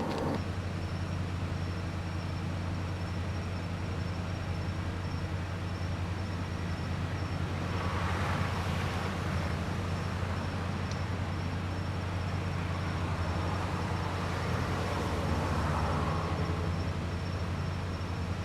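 Steady low engine rumble with outdoor traffic noise, swelling twice, about eight and fifteen seconds in, with a faint steady high whine underneath.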